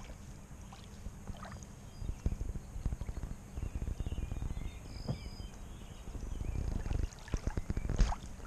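Small wind-driven waves lapping and splashing irregularly on a sandy pond shore, with wind buffeting the microphone in a low rumble.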